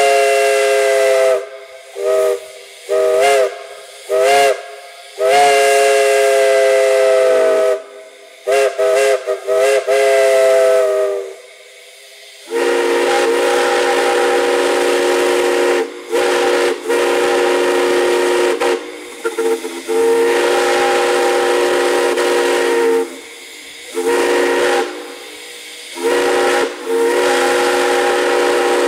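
Steam whistles blown in turn. First a multi-note chime whistle in short toots and longer blasts whose notes slide up as they open, then, after a brief gap about halfway through, a lower, hissier whistle in long blasts broken by short gaps.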